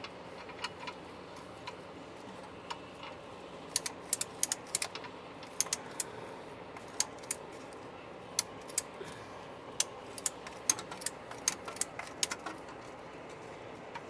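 Ratchet clicking: sharp metal clicks, some single and some in quick irregular clusters, over a steady low hiss.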